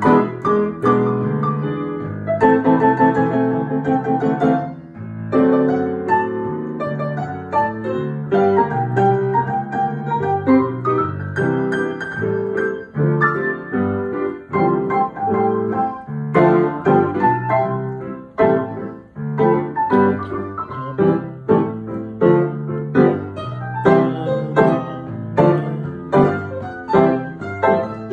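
Piano duet: an acoustic piano and a digital piano played together, chords and melody intertwined. From about halfway through, the chords fall into a steady, regular pulse.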